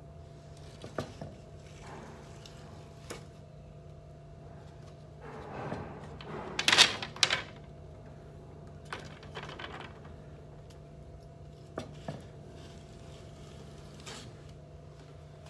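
A wire clay cutter drawn through a block of clay along stacked wooden yardsticks, with scattered light wooden knocks as the sticks are handled. About halfway through comes a louder scraping and clatter of a wooden yardstick being pulled out and set down. A steady low hum runs underneath.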